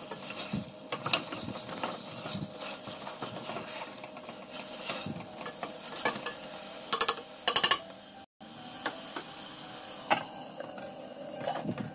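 Wooden spoon stirring and scraping minced chicken in a stainless steel pot, with a steady sizzle as the chicken fries in ghee. A quick run of sharp clacks comes a little past halfway, and a glass lid is set on the pot near the end.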